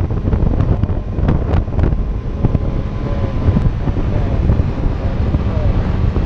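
Wind buffeting the microphone of a motorcycle at road speed, a heavy, steady low rumble mixed with the bike's engine and tyre noise, with a few sharp gusty pops in the first couple of seconds.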